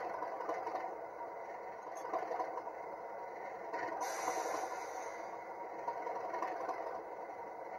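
Steady rattling mechanical sound from a 00 gauge model Class 37 diesel locomotive on a model railway layout, with a short hiss about four seconds in.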